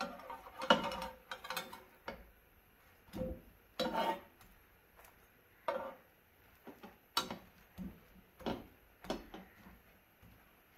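Slotted metal spatula tapping and scraping against a ridged grill pan while it moves and presses a bread slice: irregular short clicks, roughly one a second.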